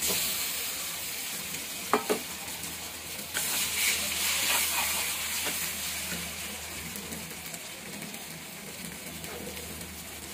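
Blended flat-bean (shim) paste frying in hot mustard oil with sliced onion in a karahi, sizzling as it is stirred with a metal spoon. Two sharp knocks come about two seconds in, the sizzle is loudest a little later, and it then eases off.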